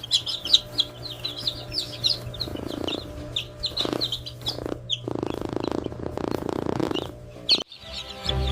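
A brood of H'mong chicks peeping, a dense chorus of short high chirps, over a steady low hum.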